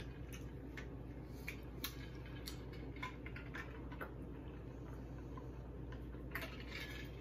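Water being drunk from a squeeze-top sports bottle: faint, irregular soft clicks of the lid and swallowing, about one every half second and fewer later on, over a low steady hum.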